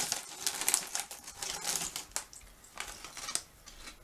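Plastic crisp bag crinkling and crackling as it is wrestled open by hand, in a quick run of crackles that thins out after about two seconds.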